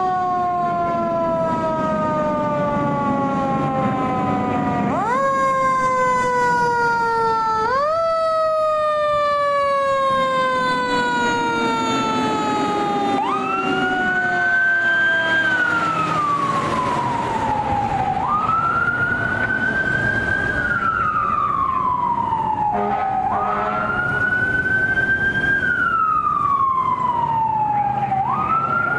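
Fire truck sirens: a mechanical siren winds up and slowly coasts down three times, then an electronic wail takes over, rising, holding and falling about every five seconds. The truck's engine runs underneath.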